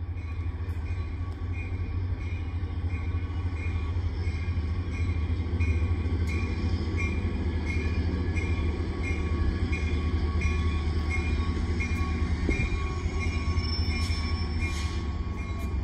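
Caltrain train approaching the station: a steady low rumble, with a bell ringing in an even rhythm about twice a second.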